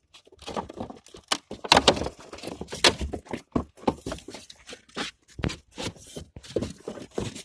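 Irregular rustling, crackling and knocks from cardboard and dry branches being handled and broken.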